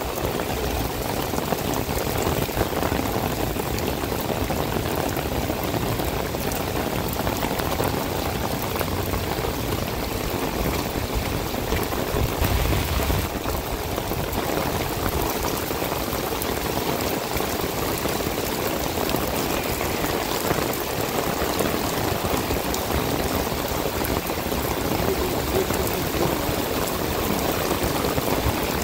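Heavy summer downpour falling on a paved street: a steady, dense hiss of rain splashing on the wet pavement.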